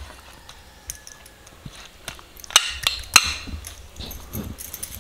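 Light clicks and taps of a stainless steel plate of masala-coated fish being handled and lifted, the two sharpest a little past the middle, about half a second apart.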